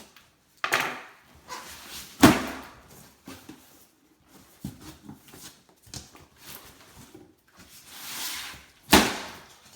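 Cardboard shipping box and its contents being handled while unpacking: sharp knocks or thumps about a second in, a couple of seconds in, and near the end, with smaller taps, scrapes and a rustle of packing between.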